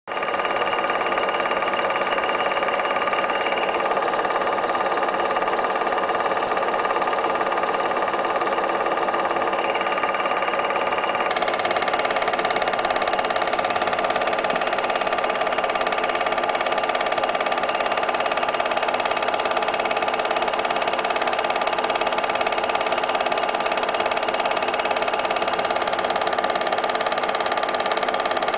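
8 mm film projector running steadily, a continuous mechanical whir with a fine rapid rattle. About eleven seconds in it abruptly turns brighter and hissier.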